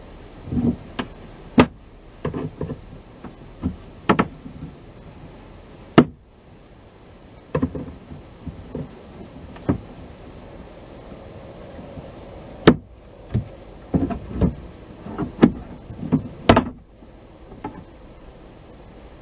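Irregular clicks, taps and knocks of a screwdriver working against the hard plastic of a Renault Laguna II's glovebox surround, with a few sharp snaps spread through. These are the glovebox fixings being undone to reach the cabin filter.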